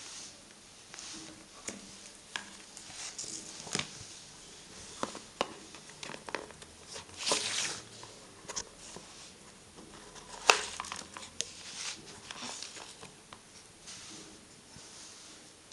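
A tablet's PU leather flip case being handled: rustling with scattered light clicks and taps as the cover is flipped open and shut. One sharp click, the loudest sound, comes a little past the middle.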